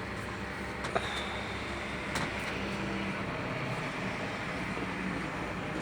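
Steady engine drone of road-paving machinery at work on fresh asphalt. Two short sharp knocks come through, about a second in and just after two seconds.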